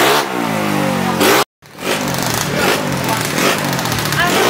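Drag-race motorcycle engine revving in repeated short throttle blips, roughly one a second, with a brief drop to silence about a second and a half in.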